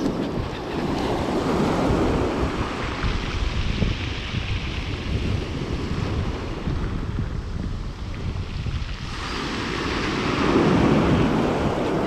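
Sea surf breaking and washing up a pebble beach, with wind buffeting the microphone. The surf swells about two seconds in and again near the end.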